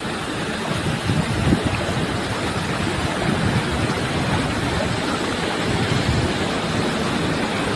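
Steady rushing of flowing river water, with wind on the microphone.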